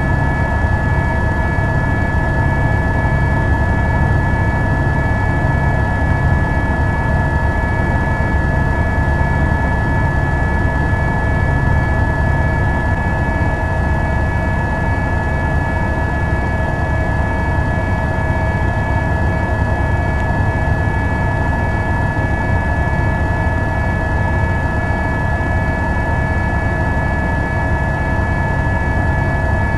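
Helicopter turbine and rotor running steadily, heard from aboard the filming helicopter: a loud constant drone with a low rumble and a steady high whine.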